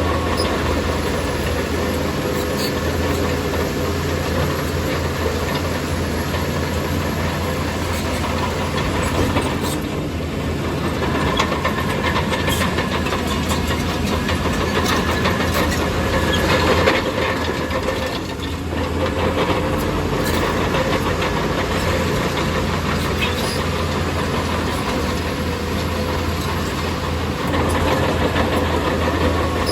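Bulldozer's diesel engine running steadily, with a few sharp knocks along the way.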